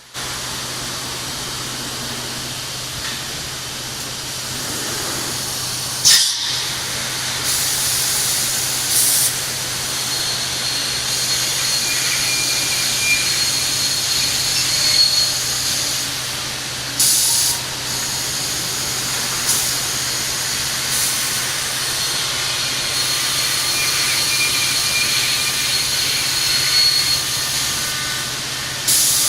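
Gabbiani Galaxy 105hs CNC beam panel saw running with a steady hum. A thin high whine comes and goes, and several short, sharp hisses are heard, the loudest about six seconds in.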